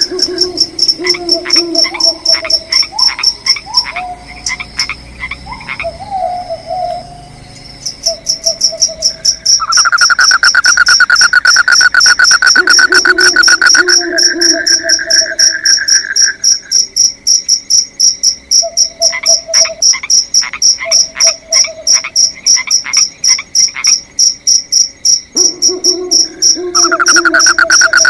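Loud night chorus of insects and frogs in a forest. A high, fast-pulsing insect trill runs throughout. A lower droning call switches on and off every few seconds, and two stretches of spaced clicking calls come and go.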